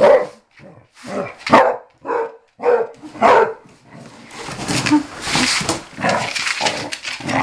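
Basset hound barking over and over, about one bark every half second for the first three seconds or so, then a few seconds of rustling, scuffling noise.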